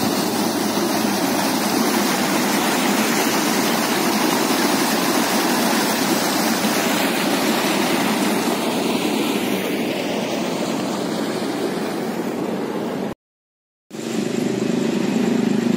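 Swollen, fast river water rushing over a weir spillway: a steady, even rush. It cuts off abruptly about 13 seconds in, and a lower steady hum follows.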